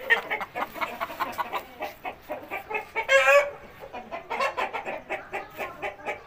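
Chickens clucking over and over, with one louder, short squawk about three seconds in.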